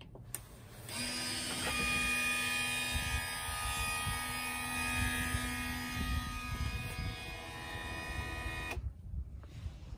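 Small electric door-opener motor running with a steady whine, starting about a second in after a click and cutting off suddenly near the end.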